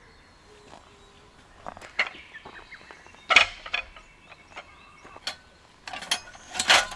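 Camping gear being handled: scattered clinks and knocks of metal and wooden pieces, irregular, the loudest about three seconds in and near the end.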